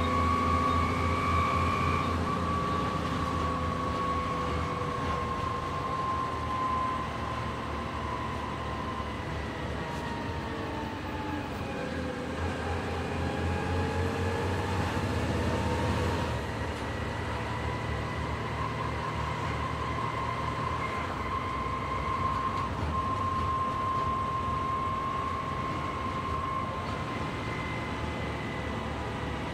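Volvo B7TL double-decker bus heard from inside the passenger saloon as it accelerates, its six-cylinder diesel engine running under load. A high whine runs over the engine; it sinks in pitch about halfway through and climbs back as the bus picks up speed again.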